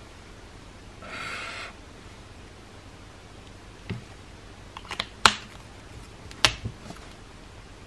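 A Typo Creative Dual alcohol marker's chisel tip drawn once across paper in a short scratchy stroke, then a few sharp plastic clicks, two of them loud, as the marker's caps are pulled off and snapped back on to change tips.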